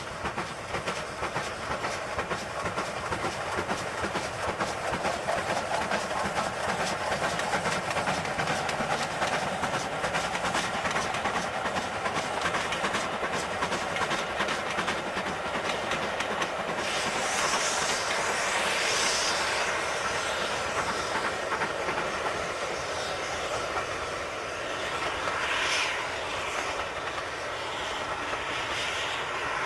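Steam locomotive hauling a train of carriages, its exhaust beating in a rapid, steady chuff, with clickety-clack from wheels over the rail joints. Bursts of steam hiss come in over the beat a little past halfway and again near the end.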